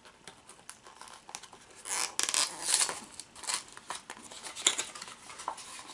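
Small cardboard toy box being torn and worked open by hand: a run of ripping, rustling and clicking scrapes, loudest about two to three seconds in.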